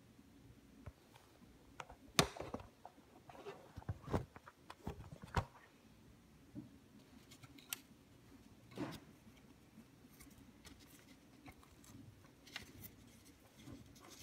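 Royal Apollo GT12 typewriter being worked by hand: irregular mechanical clicks and clacks from its parts, with a loud knock about two seconds in and a cluster of sharper clicks over the next few seconds, then a few softer ones.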